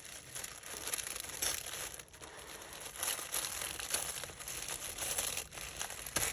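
Tissue paper crinkling and rustling with many small crackles as a wrapped parcel is opened and unfolded by hand.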